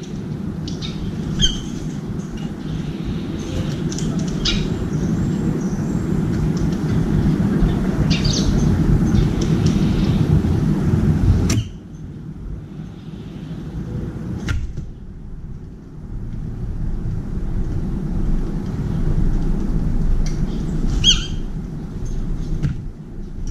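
A few short, sharp calls of brown-eared bulbuls over a loud, steady low rumble. The rumble drops off suddenly about halfway through, then slowly builds back.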